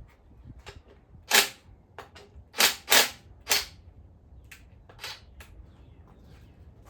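A series of sharp, separate metallic clacks and knocks, about four loud ones in the middle with fainter ones around them: hand tools and engine parts being handled and set down during a teardown.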